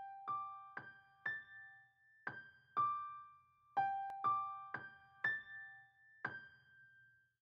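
Slow melody of single electric-piano notes, about two a second, each ringing and fading, in short phrases with brief pauses between them.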